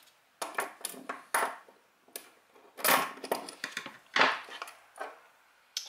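Scissors chopping through thick heavy-duty breather hose, a series of short sharp snips with knocks as the blades and cut pieces are handled on a wooden bench. The loudest snips come around the middle and just past it.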